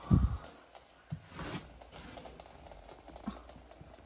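A short low thump at the start, then a brief rustle about a second and a half in and a few faint knocks.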